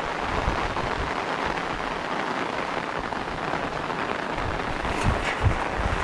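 Steady rain falling, heard as a continuous even hiss, with a couple of soft thumps about five seconds in.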